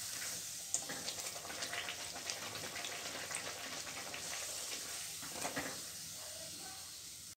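Puri deep-frying in hot oil: a steady sizzling hiss with many small crackles and pops.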